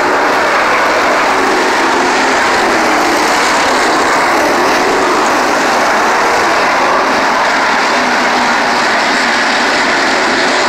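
Loud, steady engine noise from a field of 305 winged sprint cars racing on a dirt oval, their small-block V8s running hard together.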